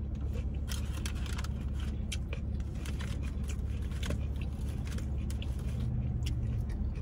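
A person eating: small crunches and clicks of chewing, scattered irregularly over a steady low hum.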